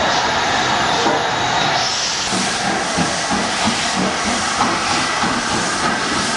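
Steam locomotive moving off along the platform: a steady hiss of steam, joined from about two seconds in by a quick regular beat.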